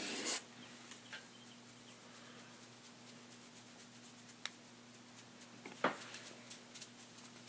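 Faint rustling and a few light clicks and crinkles of candy packets and tissue paper being handled in a woven Easter basket, over a low steady hum.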